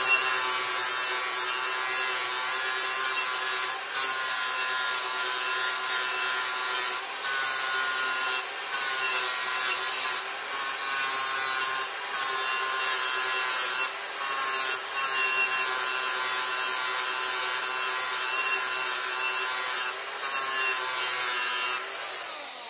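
Electric grinder with a grinding wheel grinding the worn steel blade of a lawn mower sharp, a steady motor tone under a loud, hissing grind. The grind breaks off for a moment several times, and near the end the grinder is switched off and winds down.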